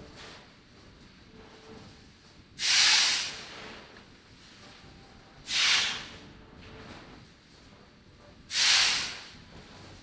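Sharp bursts of hissing from a sound installation, three times about three seconds apart. Each starts suddenly and fades within a second.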